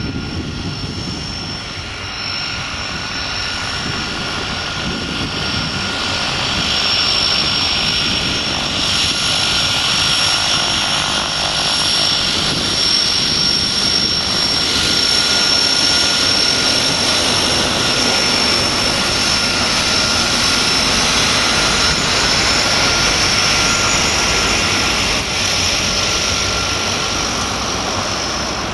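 Twin Pratt & Whitney PT6A turboprops of a Piper PA-31T Cheyenne II running as it taxis: a steady high turbine whine over propeller noise. It grows louder over the first several seconds, then holds.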